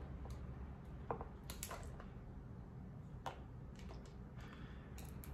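Cooked lobster shell and legs being broken apart by hand: scattered short cracks and clicks at an uneven pace.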